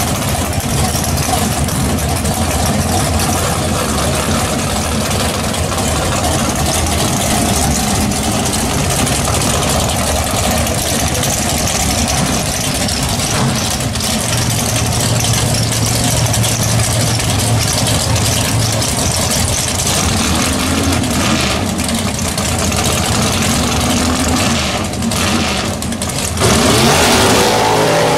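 A first-generation Chevrolet Camaro drag car's race V8 idling loudly, with a couple of short blips of the throttle about twenty seconds in. Near the end it revs hard and louder, then cuts off abruptly.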